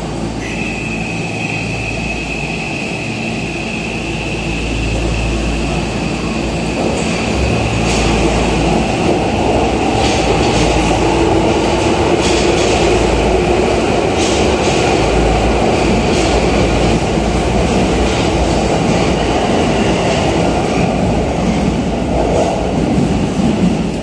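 Tokyo Metro 2000 series subway train pulling out of the station. A high, steady electric whine starts about half a second in. The motor hum then rises in pitch as the train gathers speed, and wheel clacks come through as the cars pass.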